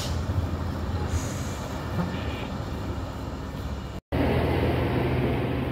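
Heavy road vehicle running on the highway: a steady low engine rumble mixed with road noise. The sound cuts out for a moment about four seconds in, then resumes.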